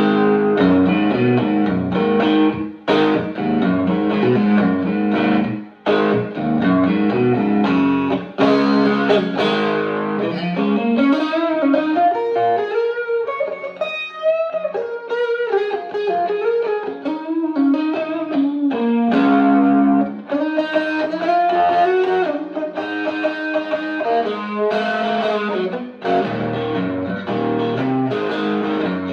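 Electric guitar played loud through a Fender Blues Junior tube amp with a Tube Screamer overdrive pedal switched on: strummed chords, then single-note lead lines with bends from about ten seconds in, then chords again near the end.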